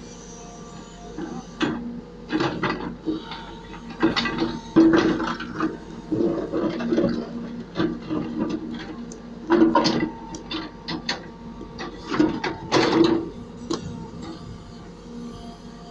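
Case 770 backhoe loader running steadily while its bucket scrapes and knocks stone blocks off the rim of a stone-lined well, the stones clattering and tumbling in irregular bursts, loudest about five, ten and thirteen seconds in.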